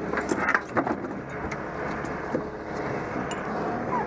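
A motor running steadily, with a few knocks and clicks of air hoses and metal fittings being handled on a boat deck in the first second.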